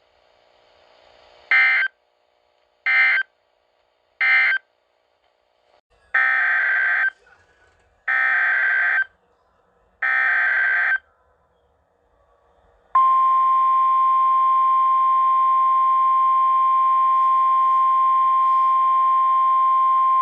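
NOAA Weather Radio Emergency Alert System tones. First come three short screeching data bursts, the end-of-message code closing the previous warning. Then come three longer screeching bursts about two seconds apart, the SAME header of a new severe thunderstorm warning. About 13 seconds in, the loud, steady single-pitch 1050 Hz weather radio attention tone begins.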